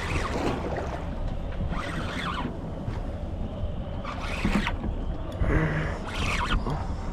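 Penn Slammer spinning reel being cranked to bring in a hooked fish. The reel and line give short rasping bursts about every two seconds over a steady low rumble.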